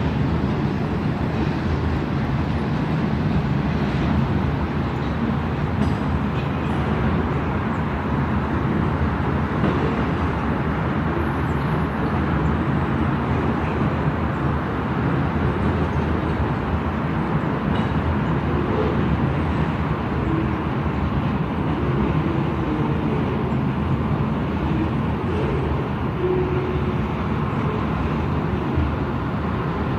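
CSX freight train rolling slowly past, a steady rumble of its cars on the rails.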